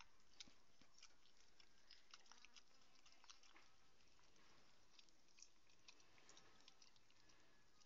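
A husky licking and chewing sticky peanut butter: faint, irregular wet mouth clicks and smacks.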